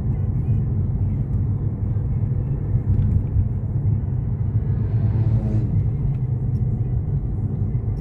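Road and engine noise inside a moving car's cabin: a steady low rumble, with a brief rising hiss about five seconds in.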